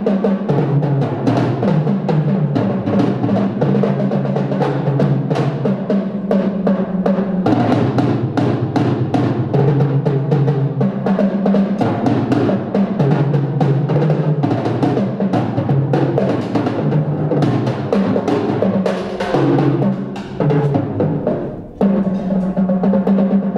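Two drummers playing a pair of tom-toms with sticks: rapid strokes and rolls, the drums ringing with a low pitch. There is a short break near the end, then the playing picks up again.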